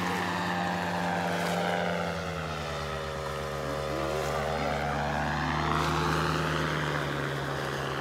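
Powered paraglider (paramotor) flying low overhead, its small engine and propeller giving a steady drone. The pitch sinks over the first few seconds and climbs again after about five seconds as it passes and turns.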